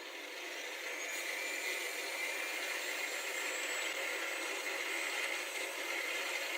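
Electric power-tool motor spinning up and then running steadily with a high whine.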